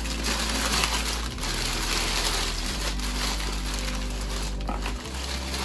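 Clear cellophane and tissue-paper flower wrapping crinkling and rustling as it is handled and pulled away, over steady low bass notes of background music.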